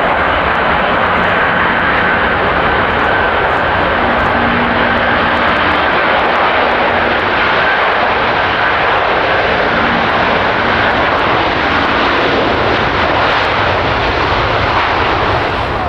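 Jet airliner passing close, its engines loud and steady with a high whine held throughout.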